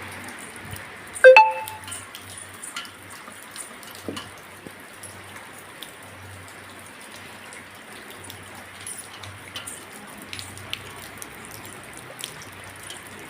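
Steady rain falling, with scattered drips and taps of drops on surfaces. A short, loud ringing note stands out about a second in.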